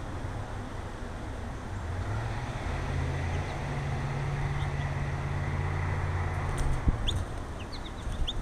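Small birds at a feeder giving several short, high chirps in the last second or two. Under them runs a steady low motor hum that swells and then stops about seven seconds in, and there are two sharp knocks near the end.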